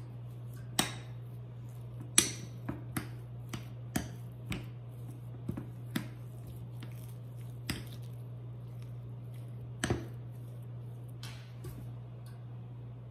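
Metal spoon clinking and scraping against a small glass bowl while mashing softened butter with herbs: irregular sharp taps, loudest about two seconds in and again near ten seconds. A steady low hum runs underneath.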